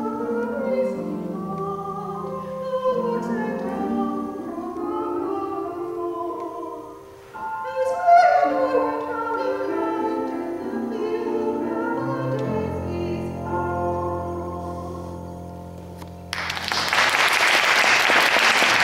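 A woman singing in classical, operatic style with piano accompaniment, ending over sustained low piano notes. Applause breaks out near the end as the song finishes.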